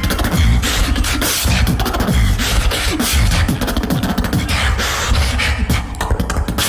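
Solo beatbox performance: a dense beat of deep, continuous vocal bass under rapid, sharp mouth-percussion strokes.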